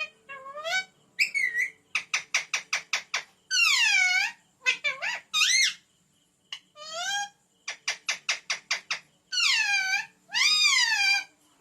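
Pet parrot calling: a string of whistled calls that swoop up and down in pitch, broken twice by quick runs of short clipped chirps, about five a second.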